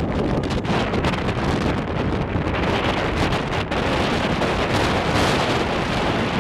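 Wind buffeting the camera's microphone: a steady, loud rumble with hiss above it.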